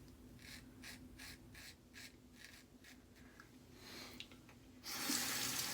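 Short scratchy strokes against freshly shaved skin, about three a second, followed near the end by a louder hiss.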